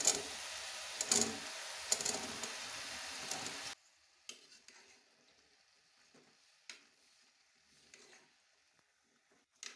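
Potato chunks dropping into a pot of dill cooking with a steady sizzle, landing in three soft thumps. After a sudden cut it goes much quieter, with occasional clicks and scrapes of a metal spoon stirring the potatoes and dill in the pot.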